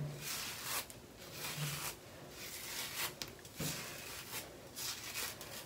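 A hard-bristle hairbrush is pulled up through thick natural hair in repeated, uneven swishing strokes, about one every half second to a second.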